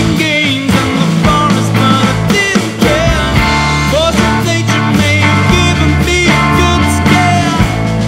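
Rock band playing: an electric guitar lead with wavering, bending notes over bass and drums.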